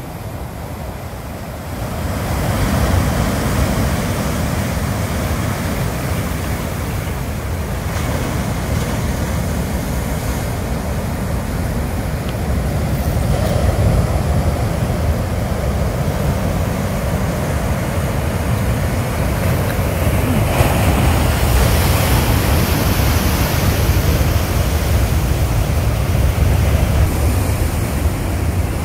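Ocean surf breaking and washing over a rocky shoreline, a continuous rushing, with wind rumbling on the phone's microphone. It gets louder about two seconds in.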